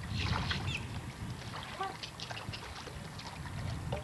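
Small waves washing against the shore, a steady low wash with a few short bird chirps over it.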